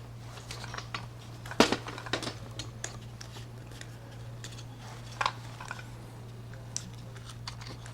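Scattered light clicks and taps of small parts being handled, as a coax cable's F connector is fitted to a keystone F-connector jack, with the sharpest click about one and a half seconds in. A steady low hum runs underneath.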